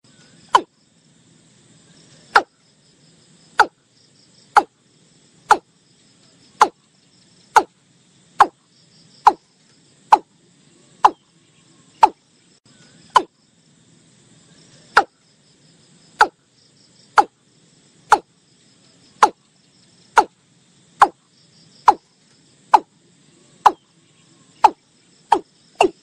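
Watercock (Gallicrex cinerea) calling: a long series of short, sharp notes, about one a second.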